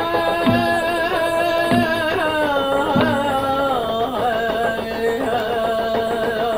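A Native American song: men's voices singing a held, wavering melody over a slow hand-drum beat, one strike about every second and a quarter. The drum stops about halfway through while the singing goes on.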